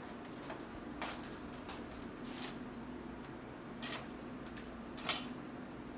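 A few faint, sharp clicks and taps, the loudest about five seconds in, over a low steady hum: hands scooping cookie dough out of a stainless steel mixing bowl.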